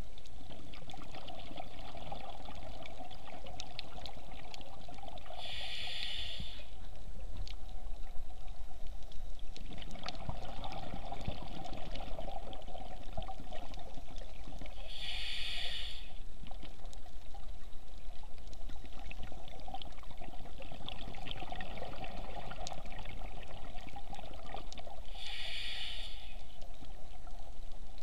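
Scuba diver's regulator breathing underwater: three short hissing inhales about ten seconds apart, each followed by a rougher stretch of bubbling exhale, over a steady underwater hiss with faint scattered clicks.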